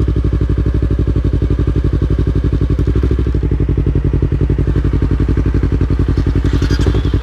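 Motorcycle engine idling steadily, with an even, rapid pulse.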